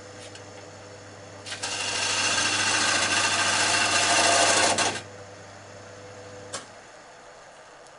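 Wood lathe running with a steady hum. From about a second and a half in, a parting tool cuts loudly into the spinning wood for about three and a half seconds, deepening a groove toward the shaft diameter. Near the end there is a click and the lathe's hum stops.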